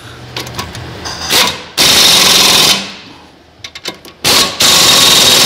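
Pneumatic impact wrench hammering the front brake caliper bracket bolts tight. It runs twice for about a second each time, each run preceded by a short blip and a few light clicks.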